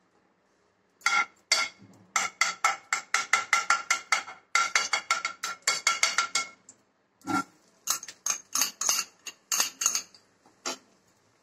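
A utensil scraping and knocking against a frying pan in quick strokes, about six a second, with a ringing metallic note as the melted ghee is spread around. After a short pause come a few scattered clinks as chopped coconut is tipped from a glass bowl into the pan.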